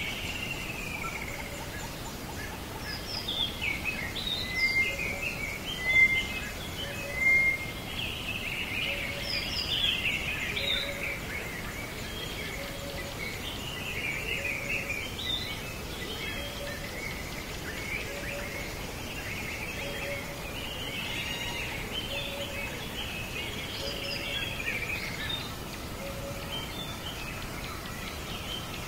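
Birds chirping in the background, many short calls, with two louder whistled notes about six and seven seconds in. A faint short low note repeats about every second and a half.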